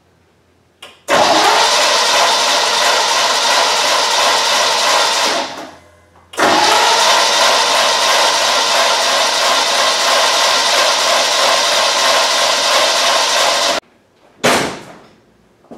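Freshly rebuilt 350 small-block Chevy V8 cranked over by its starter in two long goes, about four seconds and then about seven, cut off sharply, with a short third blip near the end, without firing and running. The carburettor bowl has not yet filled with fuel on this first start.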